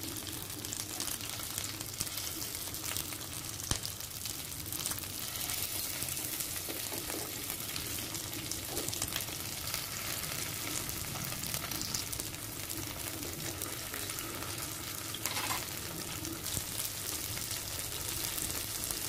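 Masala-coated sardines and curry leaves shallow-frying in oil in a nonstick pan: a steady sizzle with scattered crackles, and spoon and spatula taps as the fish are turned over.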